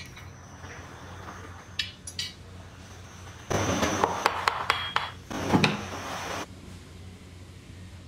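Metal clinks from a wire-coiling machine's reel, then about three seconds of rough scraping and rattling with sharp knocks as a wound coil of insulated wire is pried and knocked off the reel with a wooden stick.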